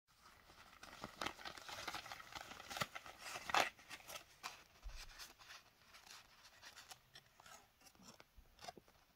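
Shredded paper filler and packaging rustling and crackling as a hand lifts a cloth pouch out of a gift box and handles paper sample packets. The crackling is densest in the first few seconds, with a loud crackle about three and a half seconds in, then thins out to occasional rustles.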